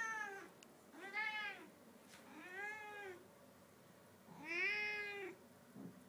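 A black cat meows repeatedly while carrying a toy in its mouth. There are four long meows, each rising and then falling in pitch, a second or two apart.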